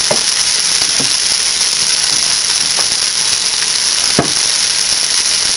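Pork roast sizzling in hot olive oil in the bottom of a pressure cooker pot: a steady high hiss with a few sharp pops and crackles, the loudest a little past four seconds in.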